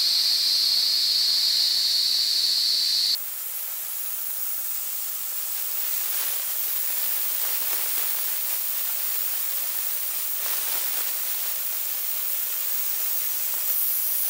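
DIMET gas-dynamic spray gun blasting aluminium powder in a compressed-air jet onto a metal engine part: a steady, loud hiss. About three seconds in, the hiss drops abruptly and loses its strong high note, then carries on evenly.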